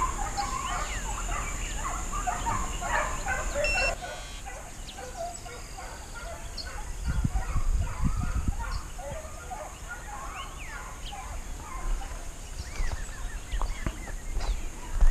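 A pack of hunting hounds baying in the distance, many overlapping calls, as they run the trail of game.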